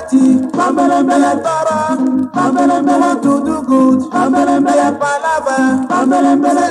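Nigerian highlife band music from a 1979 vinyl LP, an instrumental stretch: melodic lead lines played over a repeating bass pattern.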